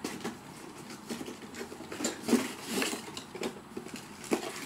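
Rustling and small irregular clicks of packaging and boxed accessories being handled while someone digs through a camera box.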